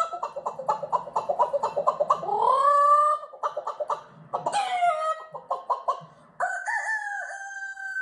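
A man imitating chickens with his voice: fast, repeated hen clucking, a drawn-out rising call about two seconds in, more clucking, then a long held rooster crow near the end.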